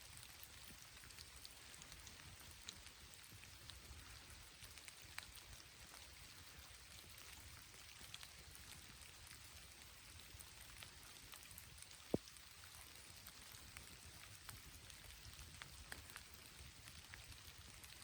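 Light rain falling, faint drops pattering with scattered small ticks, and one sharper click about twelve seconds in.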